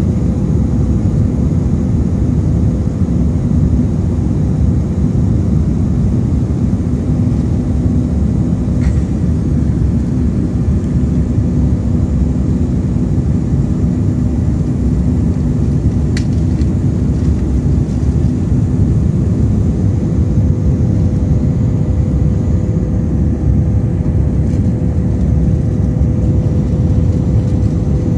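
Jet airliner cabin noise while climbing after takeoff: a steady rumble of the engines and the air outside, with a faint steady hum. There is a single brief click about sixteen seconds in.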